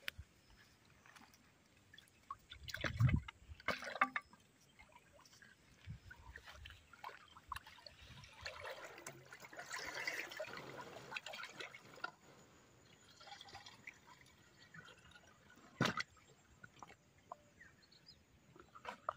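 Plastic water pots being dipped into a pond and filled, water rushing and gurgling into them, loudest about ten seconds in. A few low thumps and splashes early on and a sharp knock near the end.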